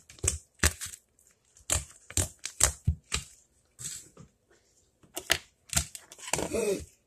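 Slime being squished and stretched by hand, giving irregular sharp clicks and pops.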